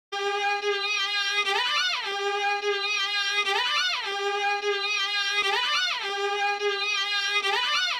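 Solo instrumental music, violin-like: one held note that swoops quickly up and back down every two seconds, repeating four times.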